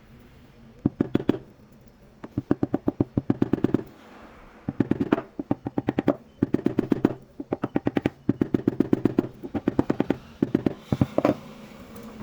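A handheld power tool, likely an impact driver, goes in repeated bursts of about a second each: fast, even clicking at about ten a second over a low hum, with short pauses between bursts.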